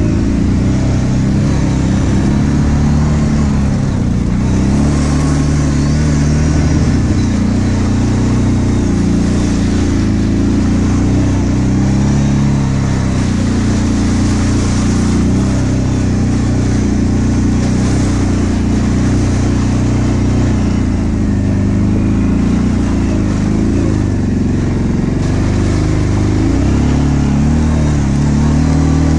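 ATV engine running under load, its pitch rising and falling as the throttle is worked, heard from on board the quad.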